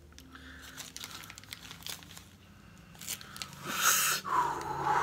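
Brown paper wrapping rustling and crinkling faintly as it is handled. About four seconds in, a loud breath is blown out through pursed lips and turns into a short whistle-like tone.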